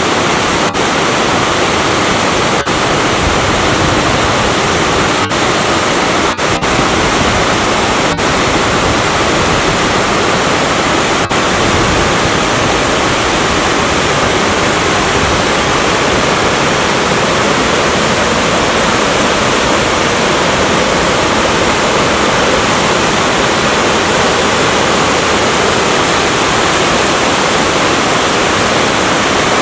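Waterfall about 5 m high pouring into a deep plunge pool, a steady, loud rush of falling water.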